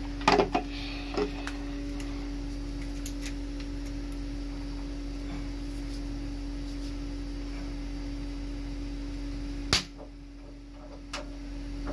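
Steady electrical hum with a few small metal clicks, then one sharp snap near the end as the negative battery cable lug meets the inverter's battery terminal: the spark of the inverter's input capacitors charging from the 48 V battery bank.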